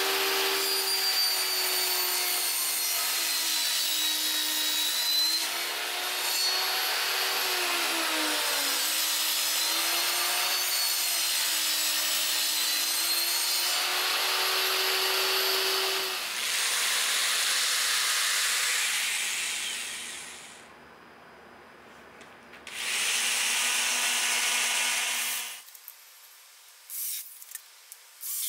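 Table saw ripping a sheet of plywood, the motor's pitch dipping and wavering as the blade cuts, followed by two shorter loud runs of the saw. Near the end a cordless drill runs in short bursts as it bores into a plywood panel.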